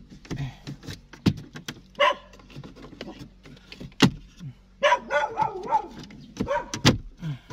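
A dog barking several times, mixed with sharp clicks and snaps as the plastic dashboard trim around the head unit is pried loose with a plastic trim tool.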